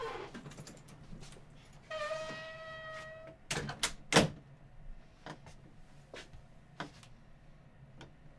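Apartment front door being shut and locked: a steady squeak for just over a second, then a quick run of sharp metal clicks ending in a loud clack of the lock about four seconds in, followed by a few faint ticks.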